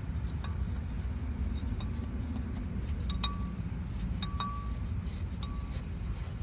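Light metallic clinks, about one a second, each leaving a brief ringing tone, as a hand tool works the third screw loose on a Ford Transit Connect's engine; a steady low rumble underneath.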